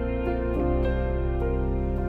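Slow, calm instrumental background music of held chords, the chord changing about half a second in.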